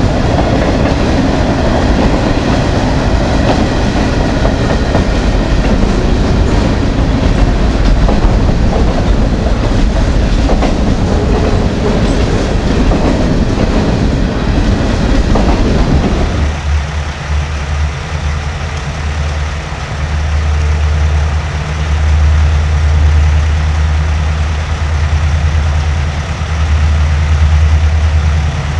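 Freight train cars rolling past on the rails, a dense clattering noise that cuts off abruptly about sixteen seconds in as the last car clears. A steady low drone remains after that.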